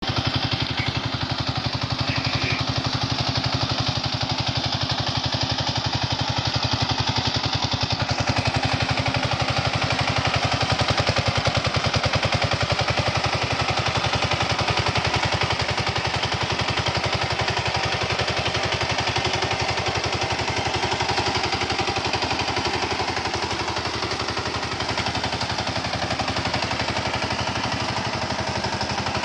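Power tiller's single-cylinder engine running steadily under load, its exhaust a fast, even train of pops.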